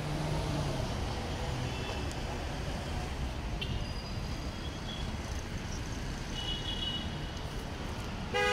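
Steady traffic noise of cars passing on a city road, with a short car horn toot right at the end.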